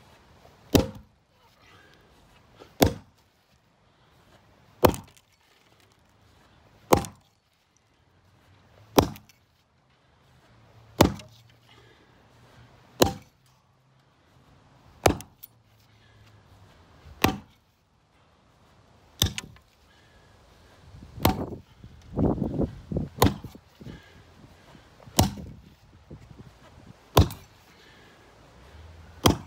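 An axe chopping into an old wooden beam, one sharp strike about every two seconds. About two-thirds through, a quick cluster of smaller knocks comes between the strikes.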